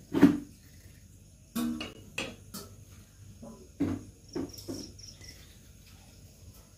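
Dough kneaded by hand on a stainless steel platter: a series of irregular thumps and knocks of the dough and hands against the metal tray, the loudest just after the start. Crickets chirp faintly and steadily behind.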